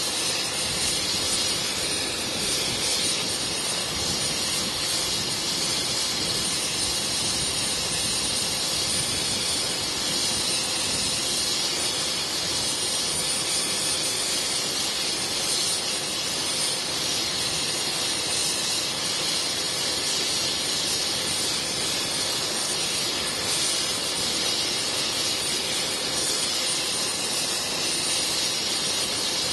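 Helicopter's turbine engine running steadily: a constant rushing hiss with a thin high whine on top.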